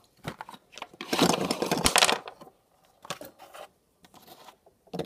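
Wax crayons being tipped out of their packets into a bowl: a few clicks, then a dense clatter about a second in, then scattered clicks as they settle.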